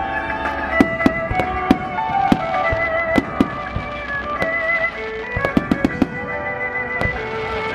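Fireworks shells bursting in a series of sharp bangs, with a quick cluster of them about five to six seconds in. They go off over melodic music with held tones played along with the display.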